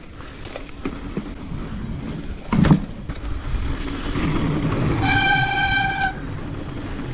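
Mountain bike rolling over a dirt trail, with one sharp thump about two and a half seconds in. About five seconds in comes a steady, high, horn-like tone lasting about a second.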